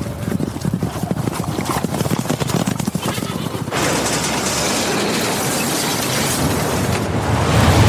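Sound effects of a horseback charge: galloping hooves pounding rapidly, then from about four seconds in a loud rushing noise that swells into a heavy boom at the very end.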